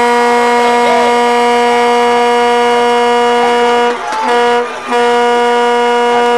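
A horn blowing one long, steady note, broken by two short gaps about four and five seconds in.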